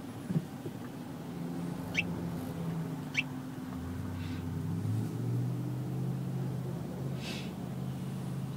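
Car cabin sound while driving on a freeway: a steady engine hum and road noise, the hum changing pitch about four to five seconds in. A few short high chirps come through about two, three and seven seconds in.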